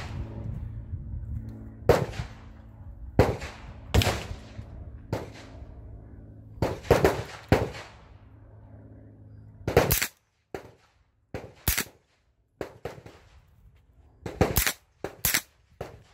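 Suppressed 9mm AR-pattern pistol (Xcaliber Seafire Diamond suppressor on a 7-inch KAK barrel) firing single semi-automatic shots, about a dozen at uneven spacing, from under half a second to a couple of seconds apart.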